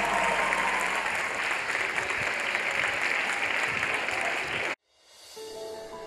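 Large audience applauding, cut off abruptly about three-quarters of the way through; after a brief moment of silence, music with sustained notes begins.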